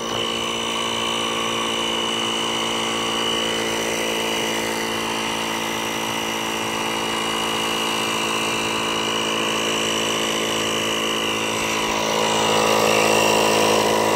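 Kobalt portable electric air inflator running steadily, pumping air into a plastic-bottle water rocket to build launch pressure. The hum gets a little louder near the end.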